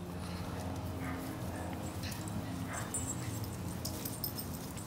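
Two small dogs, a chiweenie among them, play-wrestling and making low growling and whimpering noises.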